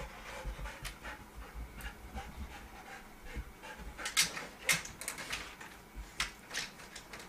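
Golden retriever panting, with scattered sharp clicks and knocks as its claws and paws land on the wooden desk; the loudest clicks come about four and five seconds in.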